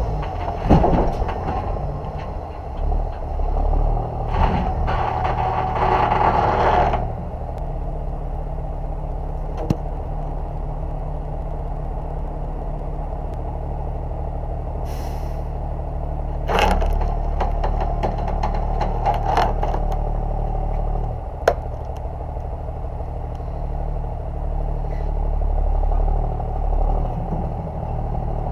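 Straight-piped Kenworth C500 bed truck's diesel engine running steadily while the skid-mounted oilfield unit is drawn onto the bed, with bursts of clattering and scraping from the load about four and seventeen seconds in, and a brief air hiss about fifteen seconds in.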